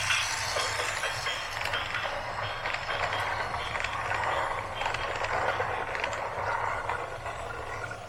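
Heavy diesel machinery running steadily, with a constant low engine drone under dense mechanical rattling and clanking.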